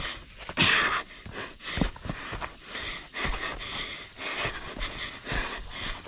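A trail runner panting hard on a steep rocky descent, with irregular footfalls and scuffs on dirt and rock. There is a louder rushing noise just under a second in.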